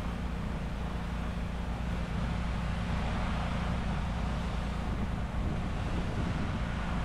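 Pressure-washing rig running steadily: an engine hum with a hiss of spraying water over it.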